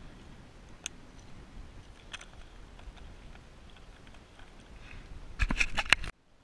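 Beach stones clicking and knocking as they are dug out and moved: a few scattered clicks, then a burst of rapid clattering near the end that cuts off suddenly.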